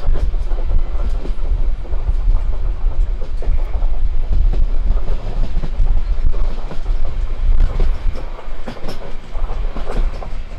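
Passenger train running at speed, heard from an open coach window: a steady rumble of wheels on the rails with scattered sharp clicks from the track.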